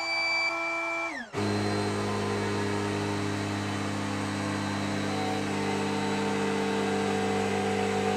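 Marlin GP80B electric boat pump running as it inflates a PVC inflatable boat's tubes toward a set 250 mbar. Its steady hum slides down in pitch about a second in, then settles into a lower, steady drone.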